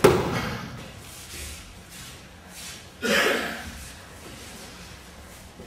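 Aikido breakfalls: a body comes down hard on the dojo mat right at the start and again about three seconds in. Each is a loud thud that fades within about half a second.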